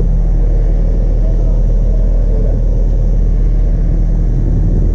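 Engine running steadily: a loud, low, even drone at one unchanging pitch.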